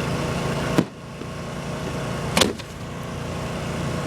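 Two sharp firework bangs about a second and a half apart, over the steady hum of a running generator.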